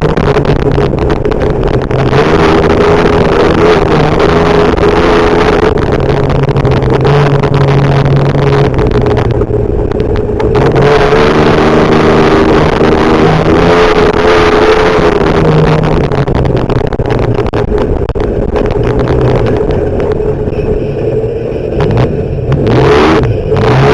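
Class 7 off-road race truck engine running hard at high revs, its pitch shifting now and then. It eases off briefly about ten seconds in and again near the end.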